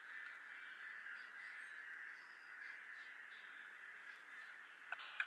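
Faint, steady hiss with no voice or music, and a sharp click near the end.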